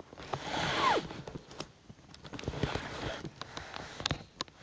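Rustling and handling noise as a plush toy and the camera are moved against each other. About a second in there is a short squeal sliding down in pitch, and near the end a few sharp clicks.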